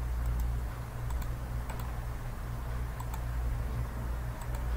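Computer mouse and keyboard clicks as text is selected, copied and pasted: a dozen or so sharp, scattered clicks, several in quick pairs. A steady low electrical hum runs underneath.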